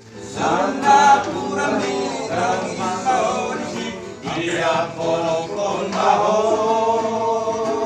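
A group of men singing a Batak-style tuak drinkers' song together in harmony, ending on a long held chord from about six seconds in.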